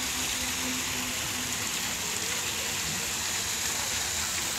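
Fountain water splashing steadily: a statue's spout and several small jets falling back into a shallow pool, a continuous hiss of spray and splashing.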